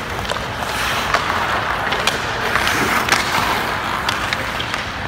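Hockey skates scraping and carving across rink ice, swelling through the middle, with several sharp clacks of stick and puck.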